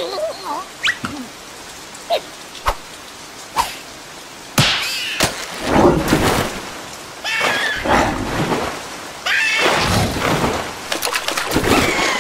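Cartoon sound effects: a few drips at first, then from about four and a half seconds in, water splashing mixed with a larva character's repeated high, wordless cries.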